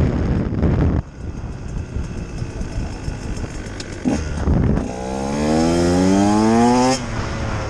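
2018 Husqvarna TE 150 two-stroke single-cylinder engine under riding load. The throttle closes sharply about a second in, the engine runs low with a short blip near the middle, then it revs up steadily for about two seconds before the throttle is shut off abruptly.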